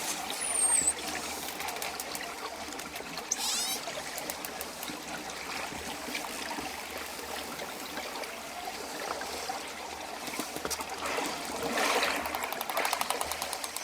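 Dolphin sounds over a steady wash of water: a short, high whistle that rises and falls about half a second in, a wavering whistle around three and a half seconds in, and a fast train of clicks near the end.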